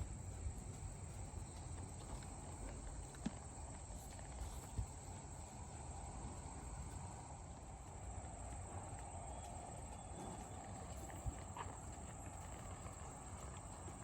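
Horse hooves, a few scattered knocks against a steady outdoor background noise.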